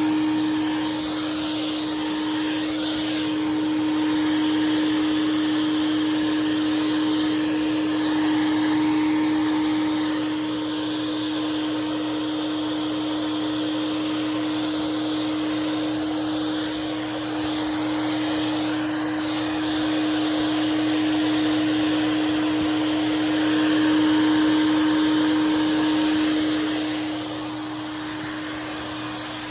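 Hoover Swingette vacuum cleaner running with a steady motor hum and airflow hiss, its loudness rising and falling a little, dropping somewhat near the end.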